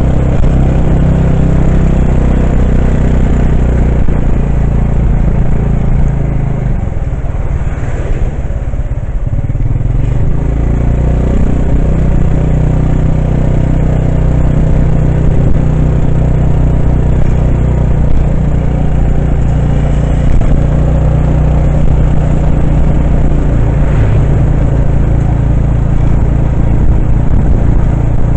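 Motorcycle engine running while riding along the road, a steady low drone. It eases off about seven seconds in and picks up again a few seconds later.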